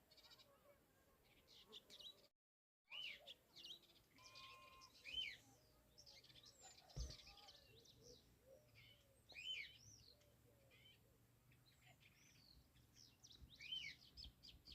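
Birds chirping and calling, many short high calls overlapping in a quiet outdoor background, with a brief dropout to total silence about two and a half seconds in.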